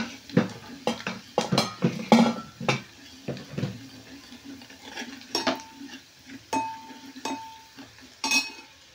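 A steel spoon stirring and scraping spice paste frying in oil in an aluminium pot, knocking and clinking against the pot's sides. The strokes come quickly for the first few seconds, then more sparsely, and a few of them leave a brief metallic ring.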